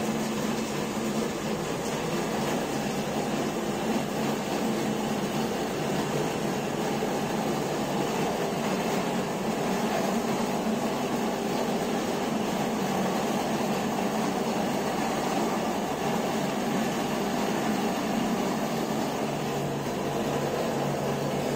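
A steady mechanical hum over an even wash of noise, unchanging throughout, with no distinct knocks or clicks.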